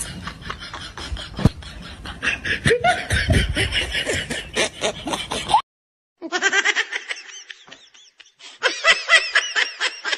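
A child laughing and giggling in quick, repeated bursts, broken by a short silence just after the halfway point, then picking up again.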